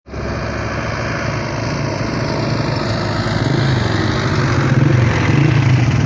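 A motor vehicle engine running steadily with a low hum, slowly getting louder.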